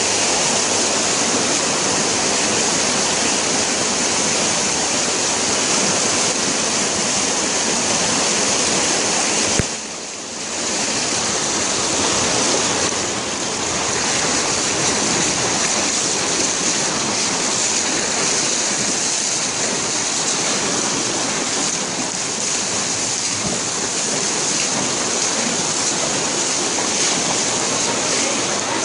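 Loud, steady rush of floodwater running fast along a street in torrential rain, strong enough to push vehicles. There is a brief dip in the noise about ten seconds in.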